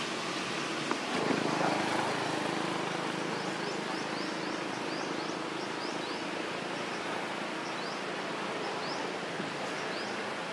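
Steady outdoor background noise, with faint short high chirps repeating irregularly a few times a second from a few seconds in.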